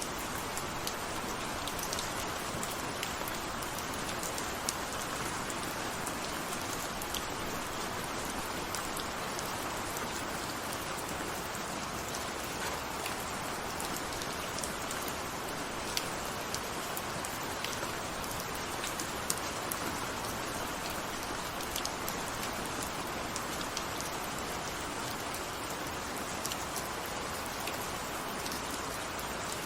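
Steady rain falling, a dense even hiss with scattered sharper drop ticks.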